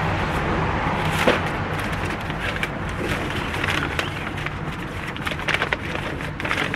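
Brown paper bag being handled and opened, rustling and crinkling in many short crackles, over a steady rumble of street traffic.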